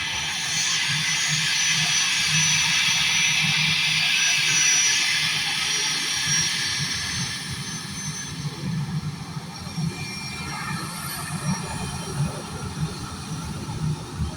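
Airbus A320 jet engines at takeoff power: a loud hiss with a high steady whine. It is loudest about four to five seconds in, then fades after about seven seconds as the jet moves away.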